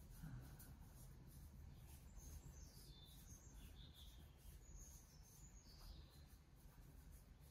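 Near silence: faint room tone, with a few faint high bird chirps in the middle.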